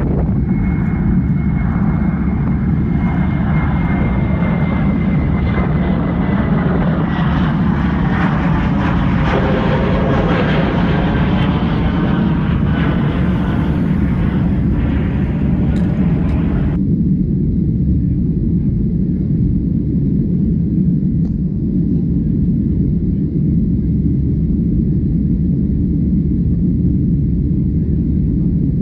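Boeing 737-800 airliner noise: a steady low roar throughout, with a higher hiss and a faint, slowly falling whine over the first two-thirds that cuts off abruptly, leaving only the low roar.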